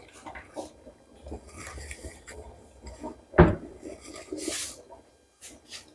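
Kitchen handling sounds: dishes and utensils clinking and knocking, with one loud knock about three and a half seconds in, followed by a brief rushing noise.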